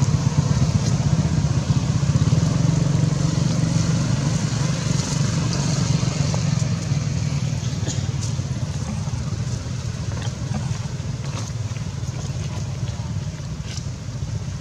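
A steady low engine drone, like motor traffic running nearby, easing off slightly towards the end. A few faint clicks are heard over it.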